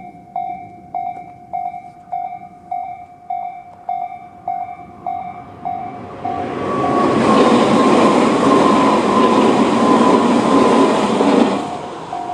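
Electronic level-crossing warning bell of the Tobu 'sound C' slow-tempo type, chiming about 1.7 times a second. About six seconds in, a Tobu 100 series electric train passes, its running noise drowning out the bell for about five and a half seconds, with a slowly falling whine; the bell returns near the end.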